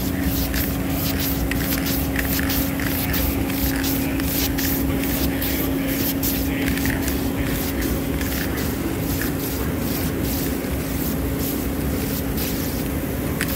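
Aerosol spray paint can hissing in many short, quick bursts as black paint is sprayed onto a transmission case, over a steady hum.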